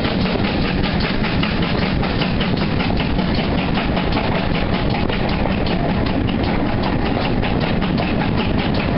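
Steam locomotive working hard with fast, even exhaust beats over a steady low rumble from the train's running, heard from on board.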